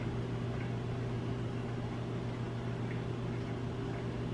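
Steady low hum with a faint hiss, like a running appliance or fan in a small kitchen; nothing else stands out.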